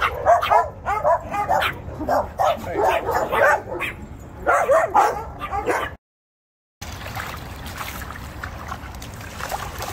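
A pack of dogs barking, many short overlapping barks in quick succession. The sound cuts out about six seconds in and gives way to water splashing in a plastic kiddie pool as a French bulldog wades through it.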